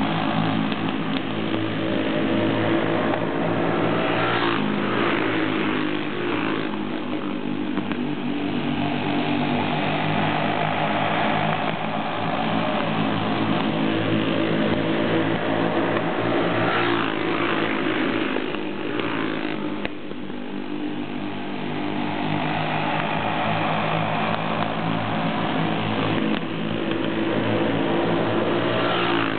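Several racing karts' small engines running hard together, the pack's engine pitch bending and dropping about three times as it passes and slows into the turns.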